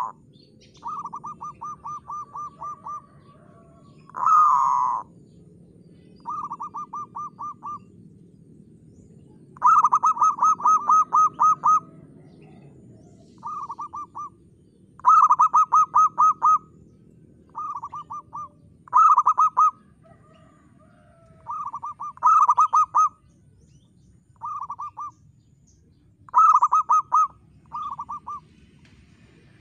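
Zebra dove (perkutut) cooing: about a dozen phrases of rapid, evenly spaced staccato notes, each phrase lasting one to two seconds, with short pauses between them.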